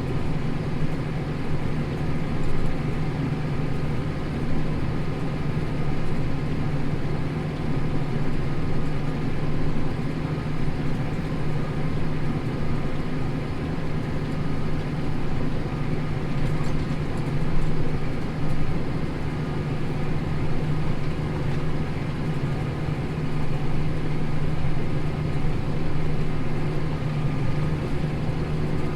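Tractor engine running steadily under load, pulling a plough.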